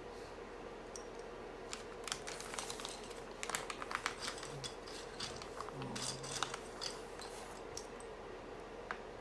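Irregular small clicks and scratchy scraping from hands handling mechanical keyboard parts during assembly, thickest in the middle of the stretch, over a faint steady hum.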